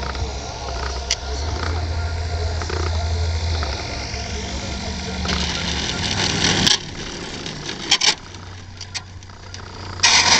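RC Piper Cub model plane with its motor running as it comes in and touches down on one main wheel. A louder rushing stretch near the touchdown cuts off suddenly just before seven seconds, followed by a few short knocks.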